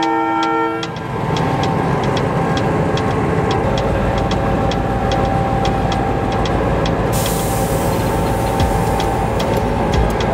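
Train running on the line: a horn chord cuts off about a second in. A steady rumble follows, with regular clicking about three times a second, and a hiss joins about seven seconds in.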